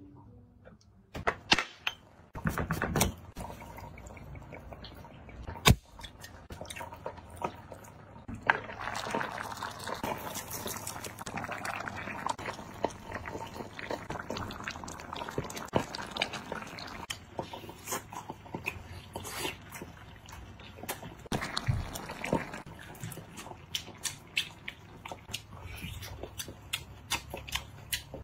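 A glass liquor bottle is handled, with a few sharp clicks and knocks. A pot of lobster and prawns then bubbles in its broth with a steady hiss for several seconds. After that come many short clicks and crunches as the cooked lobster is handled and eaten.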